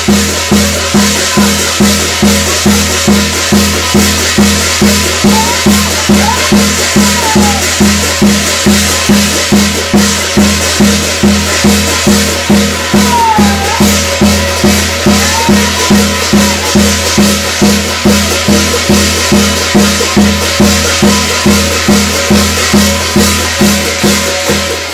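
Korean shamanic gut ritual music: a drum beating a steady rhythm of about two strokes a second under a continuous high shimmer of cymbals or rattles, with a few short sliding tones over it. The music cuts off sharply at the end.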